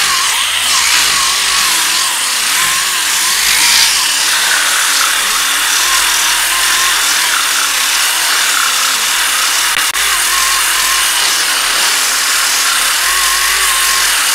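Power sander running against cured body filler, feathering the filler edge down, with a hissing grind and a motor whine that wobbles in pitch as it is pressed and moved. It cuts off abruptly at the very end.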